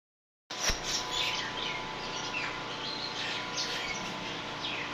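Small birds chirping repeatedly in short falling calls, over the steady hum of a generator. A brief knock comes about half a second in.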